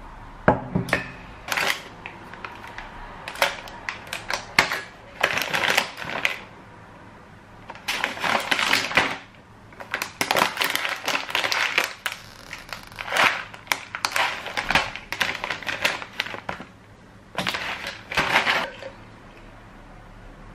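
Paper and plastic food packets rustling and crinkling as they are handled and set down on a countertop, with clicks and knocks of items being placed, in irregular bursts with short pauses between.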